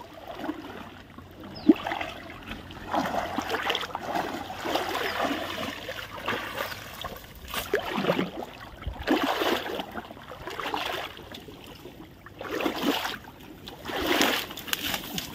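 Shallow water splashing and sloshing in irregular bursts a second or two apart, as a cast net with fish in it is worked in the water.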